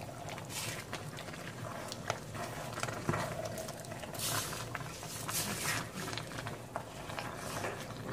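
Spatula stirring pork and thawing pork blood in a hot, steaming metal pot, with scrapes and small knocks against the pot and a few louder swishes of scraping.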